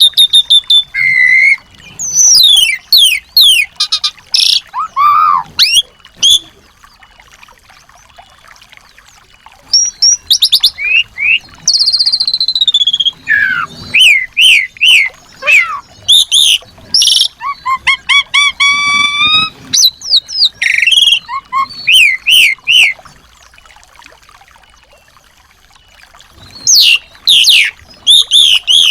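Small songbirds singing in quick bursts of high chirps, fast trills and whistled notes, broken by two pauses of a few seconds.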